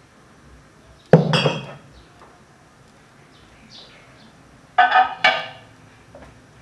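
Kitchenware clinking: one sharp, ringing knock about a second in, then two more in quick succession near five seconds. Faint bird chirps sound in the background.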